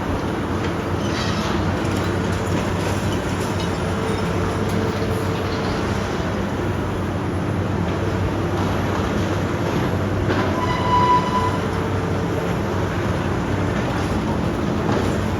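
Demolition excavator at work: its diesel engine runs steadily under load amid continuous grinding and scraping of rubble. A short, high-pitched squeal sounds once, about eleven seconds in.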